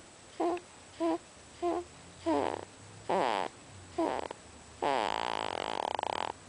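Sleeping baby making short snoring noises, about one a second, then one longer drawn-out noise near the end.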